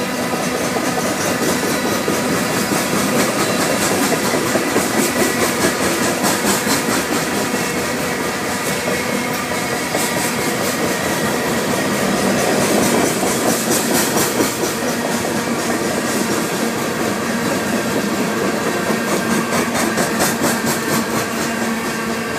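Loaded coal hopper cars of a freight train rolling past: a steady rumble and rattle of steel wheels on rail, with quick repeated clicking.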